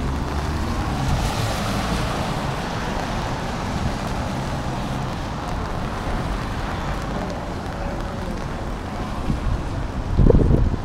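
Street traffic on wet pavement: engines running and tyres hissing as vehicles pass, with wind on the microphone. A loud gust of wind buffets the microphone near the end.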